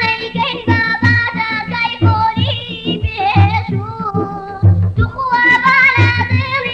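A Kurdish song: a sung melody with wavering pitch over a steady beat and bass.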